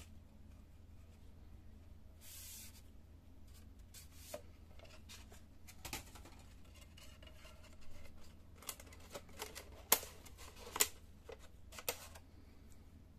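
Small clicks, taps and a short rustle of a fuser fixing film sleeve being handled and fitted onto a laser printer's fuser assembly, the sharpest clicks about ten and eleven seconds in, over a steady low hum.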